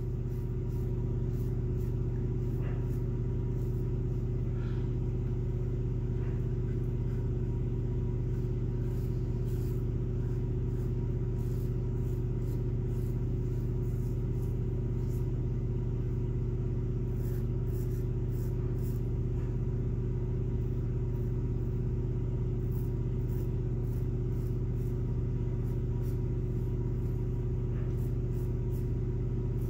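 A steady low hum runs throughout, with faint, crisp scratching strokes of a double-edge safety razor cutting stubble on the neck, coming in short clusters.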